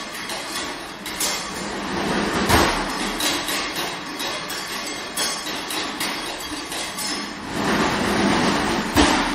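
Solo percussion playing: a dense run of struck hits, with a heavy hit about two and a half seconds in, and a swell near the end that builds to another heavy hit.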